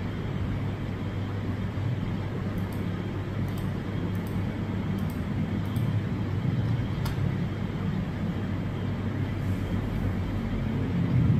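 Steady low rumble and hum of background noise, with a few faint, sparse clicks through the first seven seconds.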